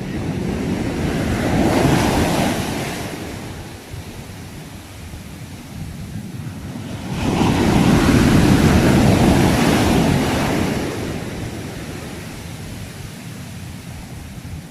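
Sea waves breaking and washing in, two of them: one swelling about two seconds in, and a larger, longer one from about seven seconds in, each ebbing away afterwards.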